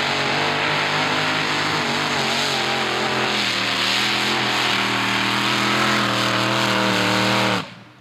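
Modified pulling tractor's engine running flat out under load as it drags the sled, a steady stack of engine tones that wavers slightly in pitch. It cuts off suddenly near the end as the pull finishes.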